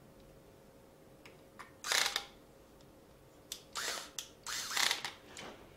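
Small clicks and short scraping rattles as a laptop hard drive and its metal caddy are handled. The loudest scrape comes about two seconds in, and more follow near the end.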